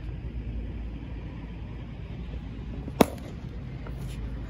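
A cricket bat striking a cricket ball once, a single sharp crack about three seconds in, over a steady low background rumble.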